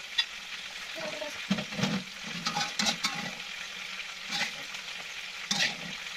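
Hot oil sizzling steadily in a wok of frying chicken, with a metal slotted spatula scraping and clinking against the wok several times as pieces are lifted out.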